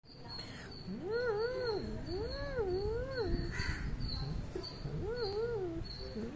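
Domestic cat yowling in three long, wavering calls that rise and fall in pitch, with a fourth starting near the end, while being pestered by a hand.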